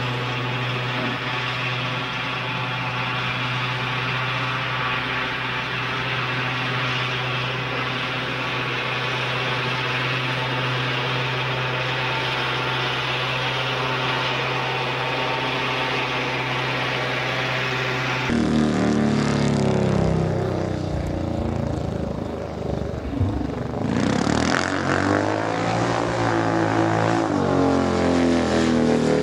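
Farm tractor engine running steadily at an even pitch while dragging the dirt track. About two-thirds through, it gives way abruptly to a speedway motorcycle running on the track, its engine note rising and falling as it revs and passes.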